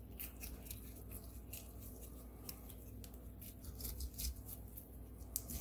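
Fish fleshing knife working between a bass's skin and meat as the skin is peeled back, making quiet, irregular soft clicks and scrapes.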